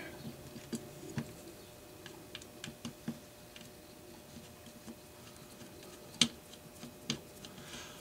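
Scattered small clicks and taps of metal parts and a screwdriver as the sheet-metal gearbox of a Lionel 182 toy crane is worked apart by hand, the sharpest click a little after six seconds in.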